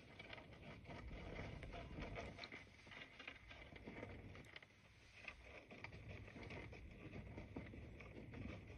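Dwarf hamsters digging and scrabbling through wood-shaving bedding: faint, irregular rustling and crackling of the shavings.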